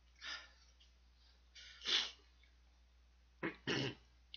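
A man's sharp, noisy breaths, four short ones with the loudest about two seconds in, as he reacts to the burn of extremely spicy fire-chicken ramen.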